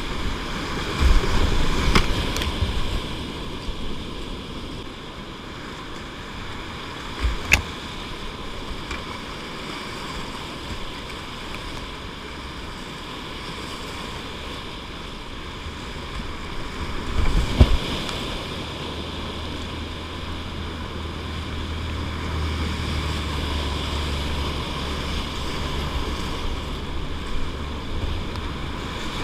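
Cheoah River whitewater rapids rushing and splashing around a kayak, close on the microphone. There are sudden loud hits about two, seven and seventeen seconds in, and a low rumble joins after about eighteen seconds.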